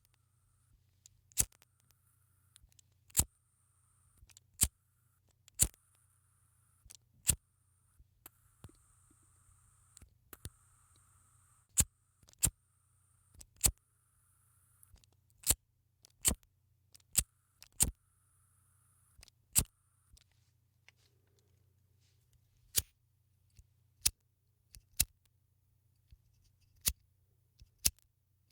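Cigarette lighter being struck over and over, a sharp click each time at uneven intervals of about one to two seconds, with a faint hiss of escaping gas between some of the strikes.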